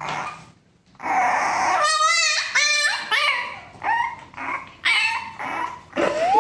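French bulldog puppy whining and yelping in a string of short high calls, one wavering, ending on a rising whine.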